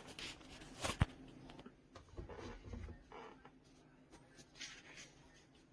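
Quiet handling noise: scattered light clicks and knocks, with one sharp click about a second in and a soft low thud a little later.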